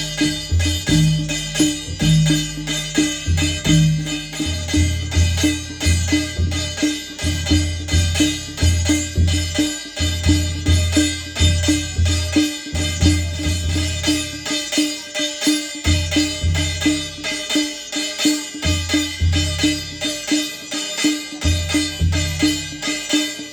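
Adivasi percussion ensemble of mandal and dhulgya drums with a beaten thali (metal plate) playing a fast, steady rhythm. Deep drum strokes are carried under a continuous dense clatter of plate strikes.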